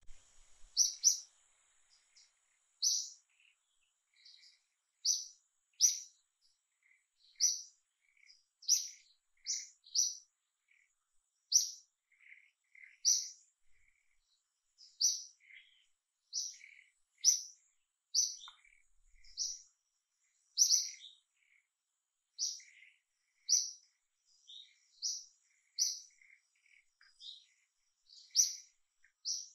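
Small birds chirping: short, high chirps repeating about once a second, with fainter, lower chirps in between.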